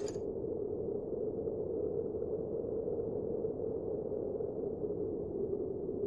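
A steady, muffled drone: an even low rushing noise with a hum running through it, with no rhythm and nothing high-pitched.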